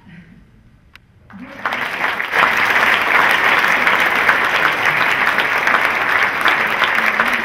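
Audience applauding: quiet at first, the clapping starts about a second and a half in, swells within a second and then holds steady and loud.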